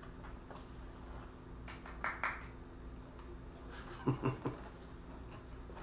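Quiet room with a low steady hum, broken by a few faint clicks and soft swallowing sounds as a drink is taken from a plastic cup, around two seconds in and again just after four seconds.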